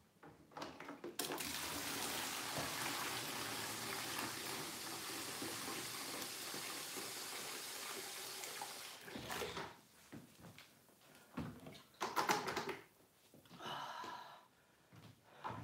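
A heavy bucket of aquarium water being poured out in a steady gush for about eight seconds, stopping abruptly, followed by a few knocks and clunks as the bucket is handled.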